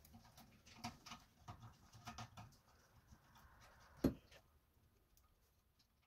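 Faint clicks and rustles of hands working electrical cable wires into an air-compressor pressure switch on a steel tank, with one sharper knock a little after four seconds in.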